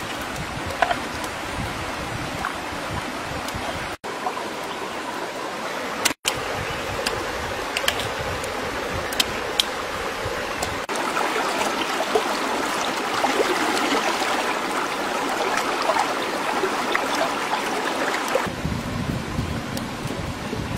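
Shallow rocky stream running steadily, with scattered small clicks and knocks over it. The water noise drops out for an instant twice.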